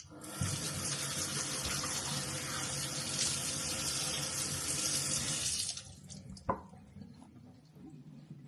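Kitchen tap running into the sink for about five and a half seconds, as when rinsing strawberries, then turned off. One sharp knock follows about a second later.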